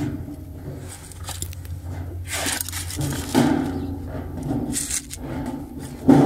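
Irregular rustling and scraping handling noises, a few seconds apart, over a low steady hum.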